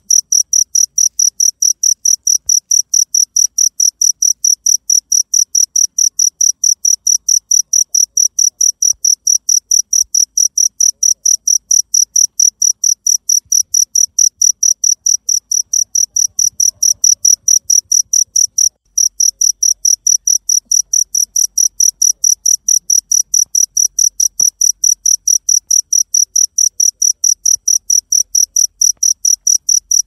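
A cricket chirping loudly and steadily, a high-pitched chirp repeating about four times a second, with one brief break about two-thirds of the way through.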